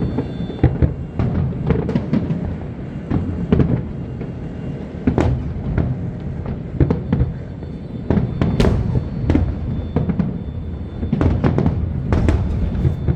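Aerial fireworks bursting in many irregular, overlapping bangs over a continuous low rumble, with music playing underneath.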